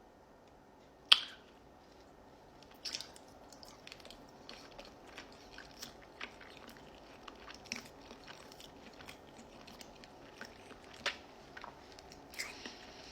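A person biting into and chewing a mouthful of egg with peanut butter and jam: one sharp click about a second in, then many small, soft chewing clicks.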